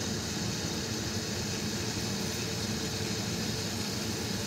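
Steady mechanical running noise, a low hum with a hiss over it, with no distinct events, cut off abruptly near the end.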